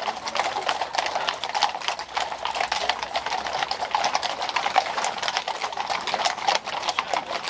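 Hooves of a column of mounted police horses walking on a paved street: a steady clatter of many overlapping clip-clopping hoof strikes.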